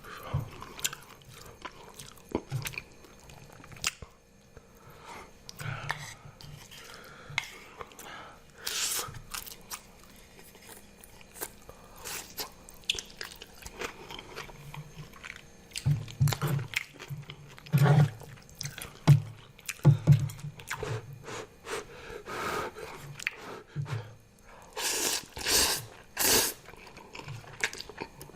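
Close-miked chewing and biting of spicy zucchini noodles with chicken and cucumber: wet mouth clicks and crunches in irregular bursts, with a few louder sharp sounds near the end.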